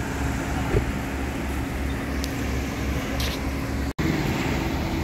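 Car engine idling with a steady low rumble. The sound cuts out for an instant about four seconds in, then the same kind of idle carries on.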